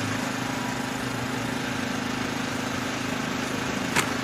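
A radio-controlled model's motor running steadily at an even, constant pitch, with a brief sharp click about four seconds in.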